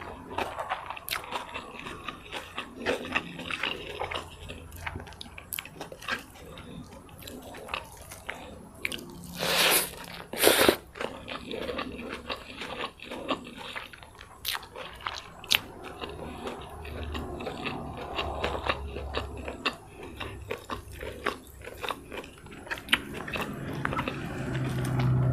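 Close-miked eating: chewing and biting on fried rice vermicelli with crunchy bean sprouts and peanut sauce, with wet mouth clicks and crunches. Two louder crunches come about ten seconds in.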